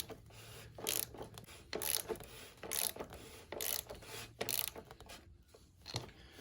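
Torque wrench ratcheting as it tightens the oil filter to 25 newton metres: a short burst of ratchet clicks about once a second, one per back-swing of the handle.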